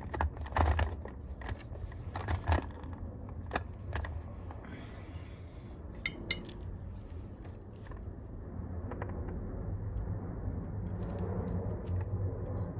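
Small metallic clicks and taps as soldering tools and a battery connector are handled, with a brief hiss about five seconds in and a steady low hum underneath later on.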